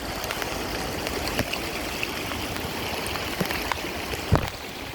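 Storm-drain floodwater running through a backyard as a steady stream. A few light knocks and one louder thump near the end.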